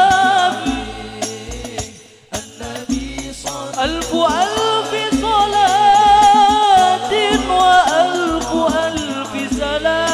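Al Banjari sholawat: a male lead voice sings Arabic devotional verses through a microphone in long ornamented melismas, over frame-drum accompaniment. The music drops away briefly about two seconds in, then the voice comes back.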